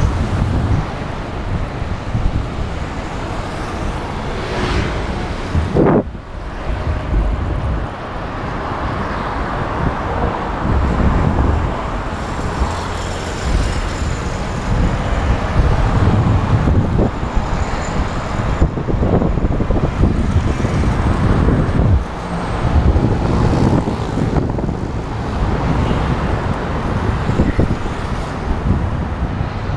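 Road traffic: cars and other motor vehicles going by in a continuous noise that swells and eases as they pass, heard from a bicycle riding along the road.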